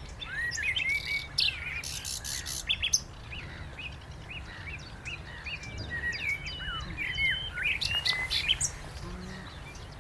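Common nightingale singing: loud phrases of fast rattling notes in the first three seconds, then a run of softer varied chirps and whistled notes.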